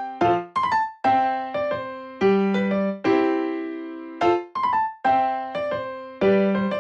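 Background music: a light electric-piano melody with chords, notes struck and fading in a steady beat.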